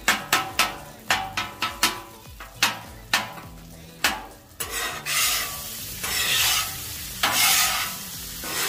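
Two metal spatulas chopping a hash brown, bacon, sausage and chorizo mix on a Char-Griller Flat Iron griddle's steel top, with sharp clacks about two or three a second. About halfway through they give way to scraping and sizzling in waves as the mix is spread across the hot griddle.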